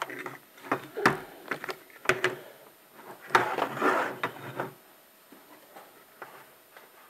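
A plastic electrical switch box and its wires being handled and set down on a concrete floor: a run of light knocks and clicks, then a rustling scrape, before it goes quiet.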